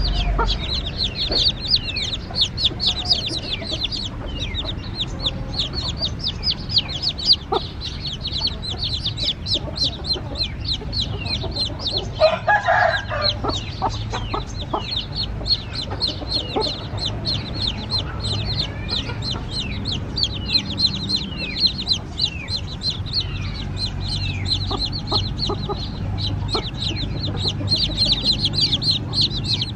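A group of young chicks peeping: a rapid, continuous stream of short, high peeps that each slide downward in pitch. About twelve seconds in, a lower, louder call lasts about a second.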